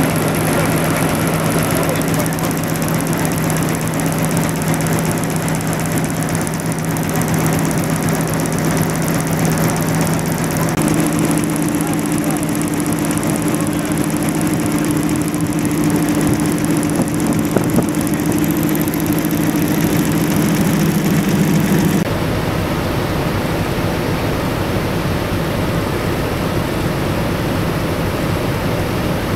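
An SM42 diesel shunting locomotive idling with a steady low hum and held engine tones, which grow fuller about a third of the way in. About three quarters through the tones stop abruptly and a steady rushing noise remains.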